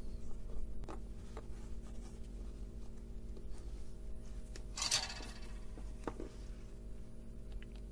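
Small clicks and light handling noises at an electronics workbench, with one brief metallic clink about five seconds in, over a steady low hum.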